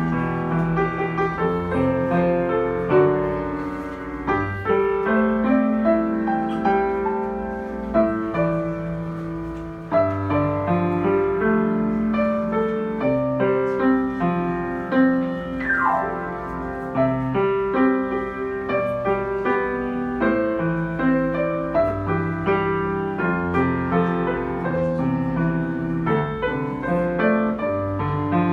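Solo piano playing a pop-song arrangement, a melody over chords, with a quick downward run about halfway through.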